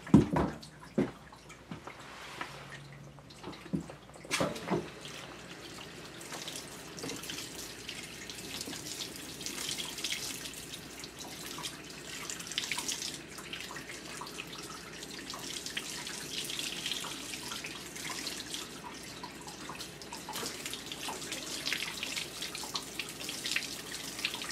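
Water from a hand-held hose sprayer rinsing a wet dog in a tub, with a steady splashing hiss and dripping. A few sharp knocks in the first few seconds.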